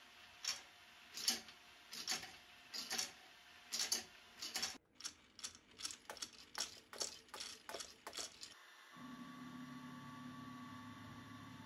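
Sharp mechanical clicks from a 3D-printed gear-driven screw separator and feeder, about one a second at first, then two or three a second after a brief break. Near the end the clicking gives way to a steady machine hum.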